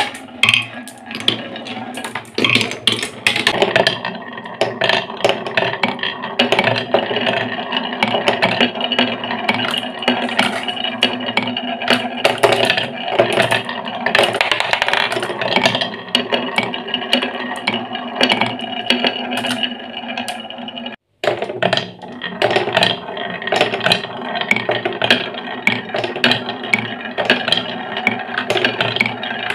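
Glass marbles rolling and clattering along grooved wooden marble-run tracks, with frequent sharp clicks as they knock against the wood. The sound breaks off completely for a moment about two-thirds of the way through.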